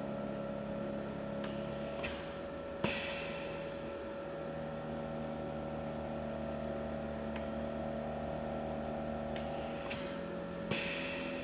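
GCE Zen-O portable oxygen concentrator running on continuous flow setting 2, shortly after start-up: a steady compressor hum with a few constant tones. A short hiss of air comes about two seconds in, again a second later, and once more near the end.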